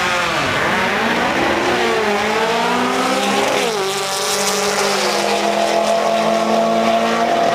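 Air-cooled VW drag car engine at full throttle down the strip. The pitch drops at a gear change near the start, climbs, drops again at a second shift about three and a half seconds in, then holds high and steady.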